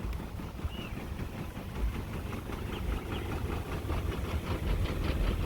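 Lexus GS350's 3.5-litre V6 engine running, a steady low rumble with uneven thumps that grows a little louder toward the end.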